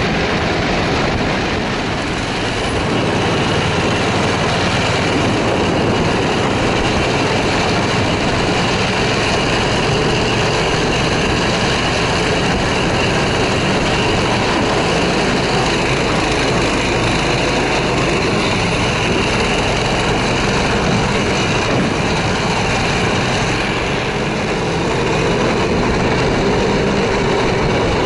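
Snowmobile engine running steadily at travelling speed, heard from the sled it is towing over snow.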